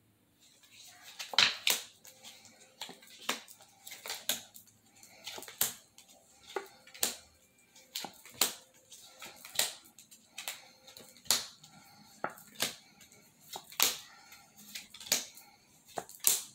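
Oracle cards being dealt one at a time off the deck onto a wooden desk: more than a dozen sharp slaps of cards landing, about one a second, with light card rustle between.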